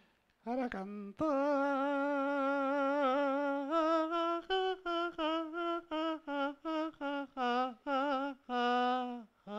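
A man's voice humming a musical scale: one long held note, then about ten short notes stepping up and down in pitch, and a longer note near the end.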